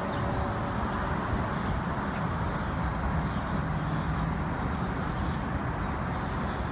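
Steady outdoor ambience of distant road traffic: a continuous low rumble and hiss with a faint click about two seconds in.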